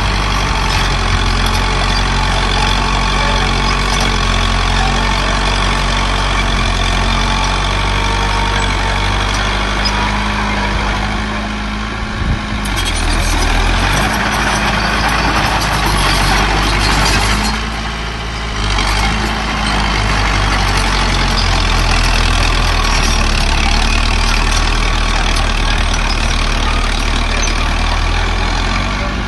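Heavy diesel earthmoving machinery running continuously, its engine note steady and low. It turns harsher and noisier from about 12 seconds in and dips briefly near 18 seconds before settling back.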